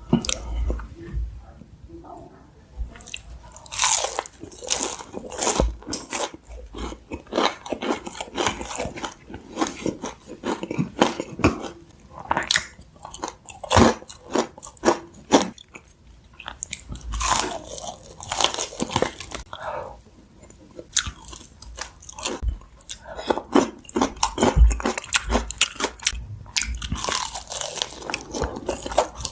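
Close-miked biting and chewing of sauce-coated fried chicken: irregular bites and wet, crackly chews in clusters, with brief pauses between mouthfuls.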